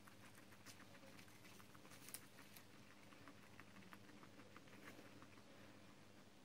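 Faint, irregular clicking and rustling of guinea pigs nibbling and moving about in hay and Jerusalem artichoke leaves, over a faint steady low hum.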